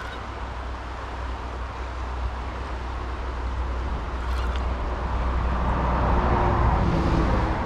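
A vehicle passing on the highway: a steady road rumble that slowly builds, peaks about six to seven seconds in, then begins to fade.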